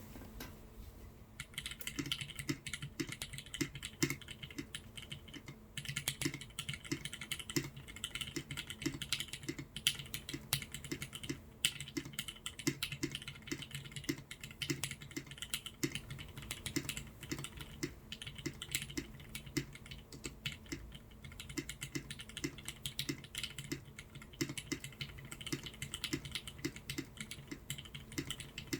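Continuous typing on a TGR Jane V2 custom mechanical keyboard with lubed vintage Cherry MX Black linear switches on 55 g springs: a fast, uneven run of keystrokes that starts about a second and a half in, with brief pauses now and then.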